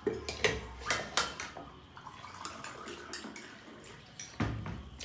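Forks clinking on ceramic plates and eating sounds at a table, with a few sharp clicks spread through, the last two near the end.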